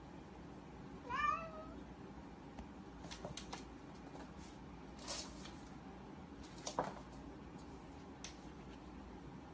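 A kitten meows once, a short call that rises and then falls in pitch, about a second in. Later come a few faint soft knocks and scuffs as it pounces about on the floor against the mirror.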